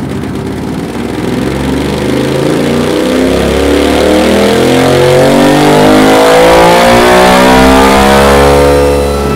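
2023 Honda XL 750 Transalp's parallel-twin engine, fitted with a Dominator aftermarket exhaust, on a full-throttle dyno run: the revs climb steadily and the exhaust grows louder for about nine seconds, then the throttle shuts off near the end.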